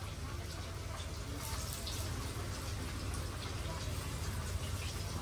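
Masala-marinated small fish deep-frying in a pan of hot oil: a steady crackling sizzle with scattered sharp pops as fresh pieces are dropped in.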